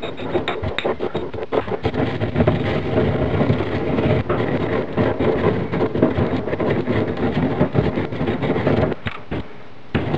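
Coffee beans being crushed and ground with a stone pestle in a stone mortar: a rapid, gritty crunching and scraping with small stone-on-stone knocks. It eases off briefly about nine seconds in.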